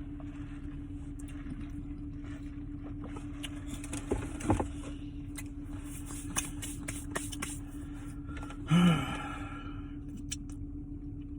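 A steady low rumble with a constant hum, like a running vehicle heard from its cabin. Small clicks and rustles are scattered over it, with a brief louder sound just before the nine-second mark.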